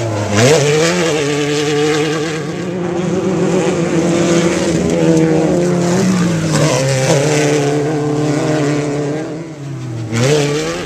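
Off-road race vehicle's engine running hard. The revs dip and climb again several times, with a sharp climb near the end.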